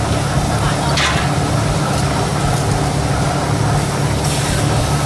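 A motor or engine running steadily with a constant low hum, with a brief sweep in pitch about a second in and a short hiss near the end.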